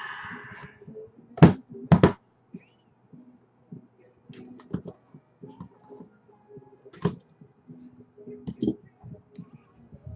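Two sharp knocks close together, then scattered small clicks and taps of trading cards and their packaging being handled on a table, over a faint low hum.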